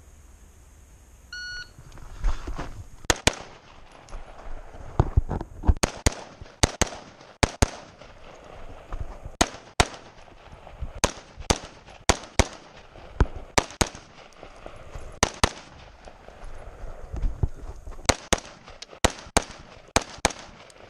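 A shot timer's start beep, then an AR-15 rifle firing about two dozen shots in quick strings of two to four, with short pauses between the strings.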